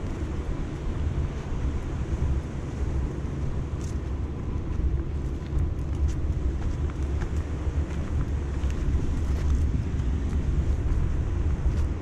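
Wind buffeting the microphone: a heavy, uneven low rumble, with light scattered crackles over it.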